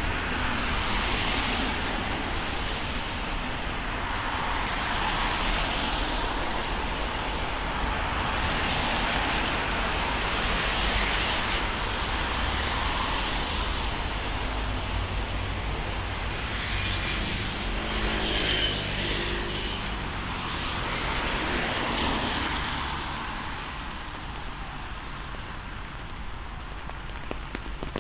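Road traffic passing on a wet street in the rain, tyres hissing on the wet surface as each vehicle swells up and fades away, over a steady low rumble. Several vehicles go by, one with an audible engine hum a little past halfway, and the traffic quietens near the end.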